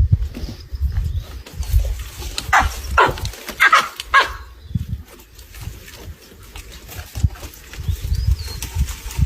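A dog barking: a quick run of about four sharp barks a few seconds in, over a constant low rumble.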